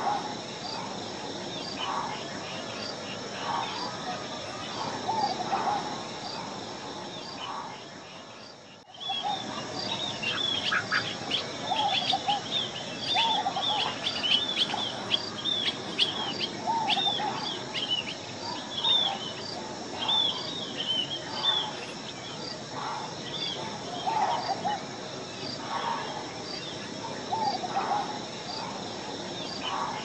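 Birds calling over a steady high insect drone that pulses about once a second. A busy run of short, sharp, high calls comes from about ten to twenty-two seconds in, over lower calls repeated throughout. The sound drops out briefly about nine seconds in, then resumes.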